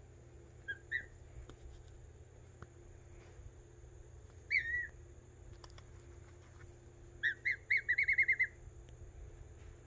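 Black swan cygnet peeping: two short peeps about a second in, a single longer peep falling in pitch midway, then a quick run of about eight peeps near the end.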